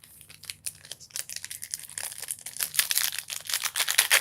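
Foil wrapper of a Topps baseball card pack being torn open and crinkled: a dense run of sharp crackles that grows louder from about a second in.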